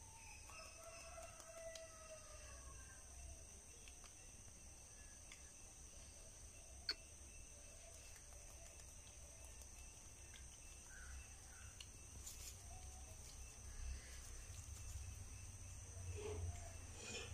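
Quiet background with a steady high-pitched whine, a faint drawn-out call falling slightly in pitch during the first few seconds, and one sharp click about seven seconds in.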